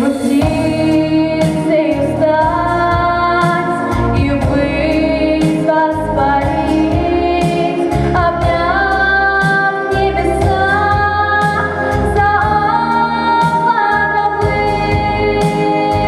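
A girl singing a song solo into a microphone over instrumental accompaniment with a steady beat.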